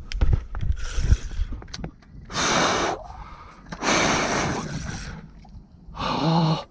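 A man breathing hard in three loud, hissing gasps, the last with a short voiced grunt, out of breath while fighting a fish on a bent rod. A few soft clicks of handling come in the first second.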